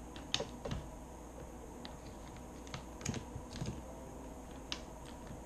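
Typing on a computer keyboard: irregular, scattered key clicks over a faint steady hum.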